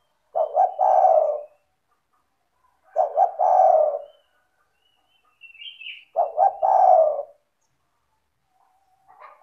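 Spotted dove (tekukur) cooing: three call phrases about three seconds apart, each a couple of quick short notes running into a longer coo. A faint high chirp from another small bird comes between the second and third phrases.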